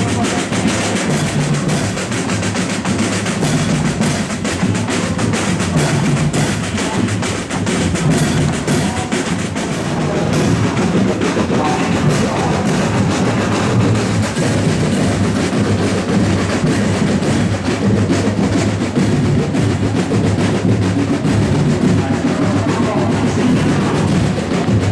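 School marching band percussion: snare and bass drums with clashing cymbals playing a marching beat.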